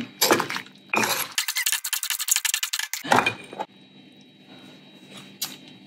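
A metal spoon and a stone pestle clinking and knocking against a granite mortar as shredded papaya salad is tossed and lightly pounded. Sharp knocks lead into a rapid run of clinks, then a heavier knock about three seconds in, after which it goes quieter with one more knock.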